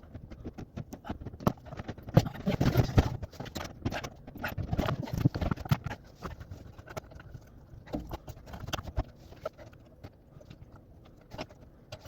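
Irregular knocks, clicks and clatter of hand tools and metal fittings being handled while a dishwasher's electrical and water-supply connections are made up. The clatter is busiest in the first half and thins out and grows quieter later on.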